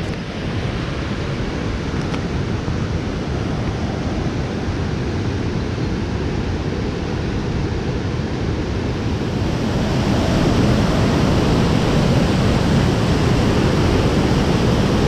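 A steady rushing noise that grows louder about ten seconds in.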